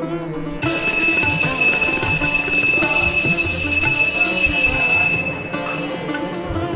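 A bell ringing with steady high ringing tones. It starts suddenly about half a second in and stops about five seconds in, over background instrumental music.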